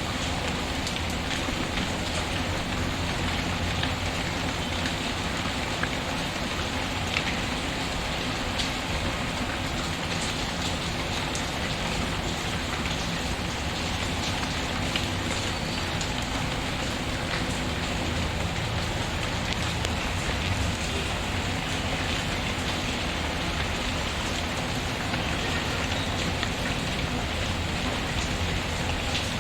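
Steady rain falling, with scattered sharp clicks of a crackling wood fire in the fireplace.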